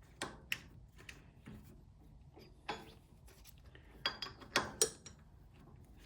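Scattered metallic clicks and clunks, several sharp ticks spread unevenly through, as the cam-lock cams on a Warco GH1330 lathe's spindle nose are turned with a key; one cam is sticking and will not rotate all the way.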